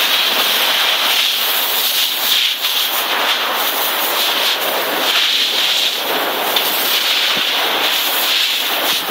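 Water spraying from a garden hose onto hard ground, a steady hiss of spray.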